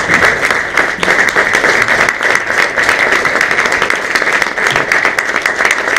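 Audience applauding the cast at a curtain call: dense, steady clapping that runs on without a break.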